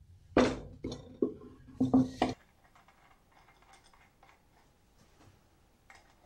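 A few sharp clattering knocks as the wooden band saw wheel, with its metal flange bearing block and threaded rods, is handled on the bench, followed by faint small metal clicks as the bearing block is fiddled with.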